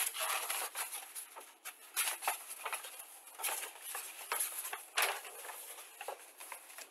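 Pages of a paper model-kit instruction booklet being turned and flipped, a run of crisp rustles and flaps with louder flicks about two, three and a half and five seconds in.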